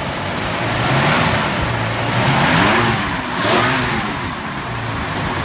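1966 Mercury Comet Cyclone's V8 engine, running on a newly replaced carburetor, idling and then revved several times in quick succession through the middle before settling back to idle.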